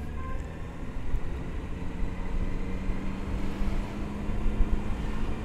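Motorcycle running at a steady road speed, heard from the rider's seat as a rumble of engine, road and wind noise; a steady engine hum comes in about two seconds in.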